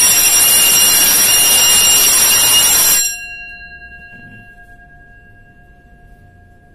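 Electric fire alarm bell ringing loudly and continuously, set off by pressing the manual call point as a test. About three seconds in it cuts out, and the gong rings on, fading slowly.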